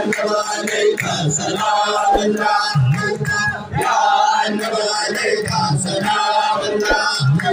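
A group of men chanting a devotional Sufi poem together, with a lead voice over a microphone and the crowd joining in.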